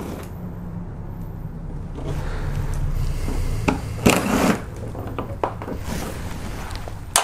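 Cordless ratchet with an 8 mm socket running in spurts as it backs out the bolts of a car's underbody splash shield. A louder stretch of whirring comes in the middle, then a brief loud burst about four seconds in, with a few sharp clicks and knocks of the tool and the bolts.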